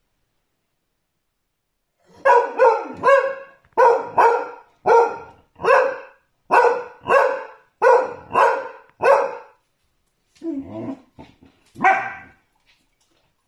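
A dachshund barking in a quick series, about a dozen barks at roughly two a second, starting about two seconds in. A few quieter, lower sounds follow near the end.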